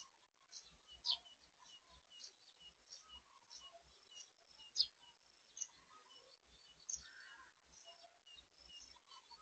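Small birds calling: one repeats a short high chirp about three times a second, while a few louder, sharper calls stand out over it, the loudest about halfway through.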